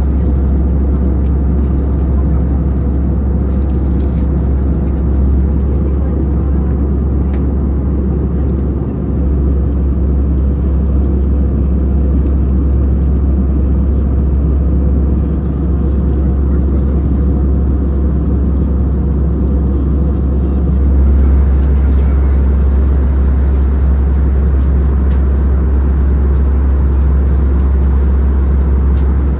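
Airbus A319-100 cabin noise in cruise flight: a steady, low rush of engine and airflow, a little louder about two-thirds of the way through.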